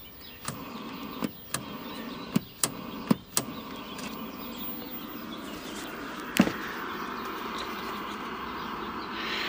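Clicks and knocks of hands working on a portable TV set, several in the first few seconds and a louder one about six seconds in, over a steady hiss.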